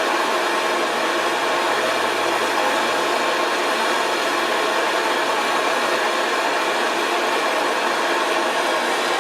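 Hand-held torch flame hissing steadily while heating a seized boiler pipe fitting to loosen it.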